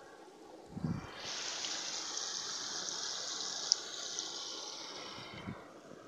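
Rushing water of a small waterfall, a steady hiss that comes in suddenly about a second in and fades away near the end. A low thump comes just before it, and a brief sharp click comes midway.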